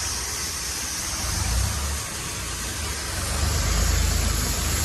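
Ford 3610 tractor's diesel engine running, getting louder about three and a half seconds in as it takes up the pull on a log chained behind it.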